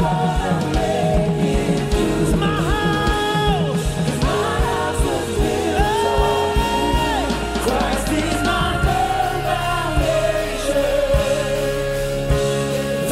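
Live worship band with vocalists singing long held phrases over a steady drum beat and bass guitar.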